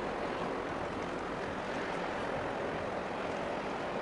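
Steady rushing noise of wind and choppy harbour water, even throughout, with no distinct engine note standing out.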